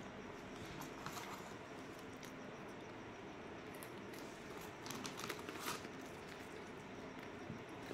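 Cats chewing and crunching food: faint crackly crunches in short bursts, about a second in and again, louder, around five seconds in, over quiet room hiss.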